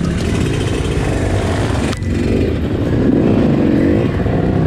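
Yamaha YZ125X single-cylinder two-stroke dirt bike engine running under load on the trail. It briefly drops off about two seconds in, then revs up and down.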